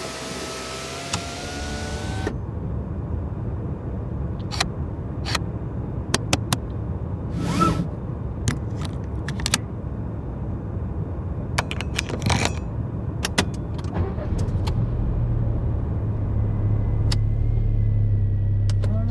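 Volkswagen Polo 6 car sounds: an electric window motor whines, rising slightly in pitch, and stops about two seconds in. A low steady rumble follows, with scattered clicks and knocks from the car's mechanisms, and the rumble grows a little louder from about three-quarters of the way through.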